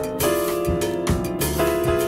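Jazz film score: a drum kit keeping a steady beat under sustained chords.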